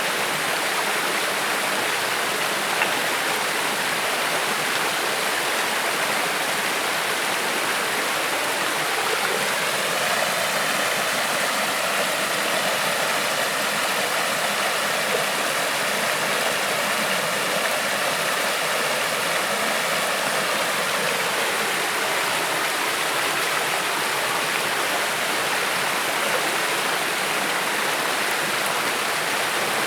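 Creek water flowing, a steady, unbroken rush.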